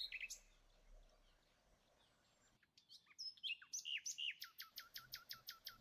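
Faint bird chirping: a few chirps at the start, then after a pause of a few seconds a quick run of short chirps, each falling in pitch, about five a second.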